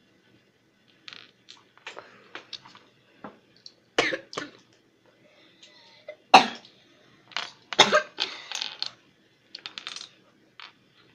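Small hard plastic toy pieces and their packaging being handled: scattered clicks, rattles and rustles, with a few louder knocks.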